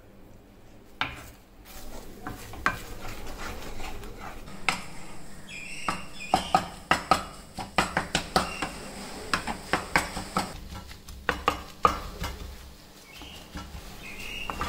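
Wooden spatula stirring and scraping scrambled egg bhurji around a kadai. From about four seconds in to about twelve seconds it knocks against the pan several times a second.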